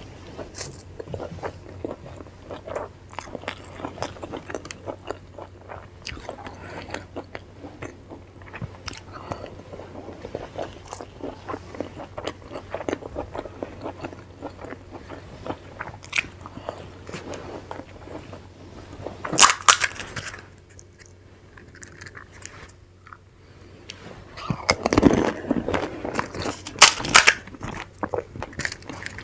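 Close-miked eating of steamed momos with chutney: a dense run of small wet bites and chewing sounds. Partway through, a single loud sharp noise. Near the end come louder, crisp cracking sounds as hollow pani puri shells are broken open and filled.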